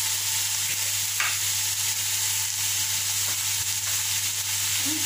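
Chicken pieces sizzling in a hot pot, a steady frying hiss as they cook in their own juices before any water is added. A steady low hum runs underneath.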